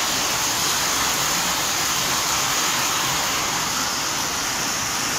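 Rain falling steadily, a continuous high hiss.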